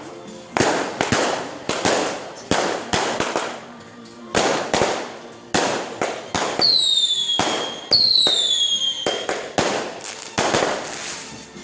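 Fireworks going off in a rapid, irregular string of sharp bangs, about two a second. Two whistling shells shriek with falling pitch, one about six and a half seconds in and one about eight seconds in.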